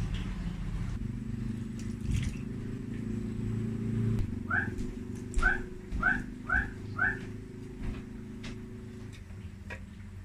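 Five short rising calls from an animal, roughly half a second apart, over a low steady hum, with light clicks and knocks as a tin can is emptied of canned fruit into a plastic bowl.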